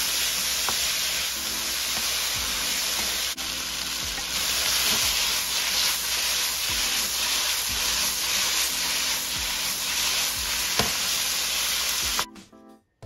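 Chicken, string beans and onion sizzling in oil in a hot nonstick pan while a wooden spatula stirs and tosses them, with occasional sharp taps of the spatula against the pan. The sizzle cuts off suddenly near the end.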